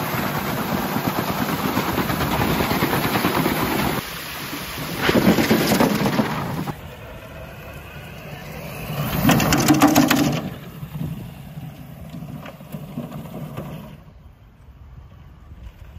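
Electric RC car running on plastic water-jug wheels: the motor whirring while the jugs scrape and rumble over a paved slope, then driving on grass with louder passes about five and ten seconds in. The sound cuts abruptly several times, between separate driving runs.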